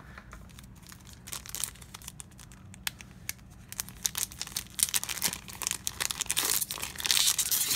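Trading-card booster pack wrappers being crinkled and torn open: a run of crackling rustles that gets busier in the second half and is loudest near the end.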